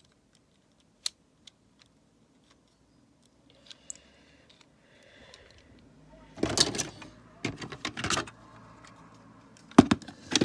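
Plastic Lego pieces clicking and clattering as they are handled: a few single sharp clicks at first, then louder rattling of plastic against plastic twice over the second half.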